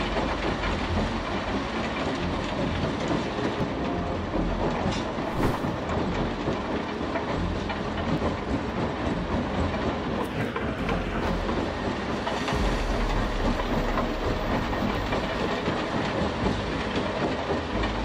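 Rock-crushing and screening machinery running, with a continuous dense clatter of stone rattling over steel chutes and screens. A deeper engine rumble joins about twelve seconds in.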